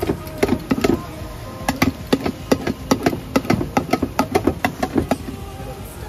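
Metal spatula striking and clanking against steel cookware in a rapid run of sharp strikes, about four a second, that stops about five seconds in, over a steady low background rumble.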